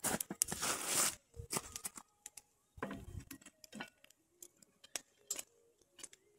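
Cast-iron Dutch oven being handled on a fire pit grate: scattered light metal clicks and clinks from its bail handle and lid, after a rustling crunch in about the first second.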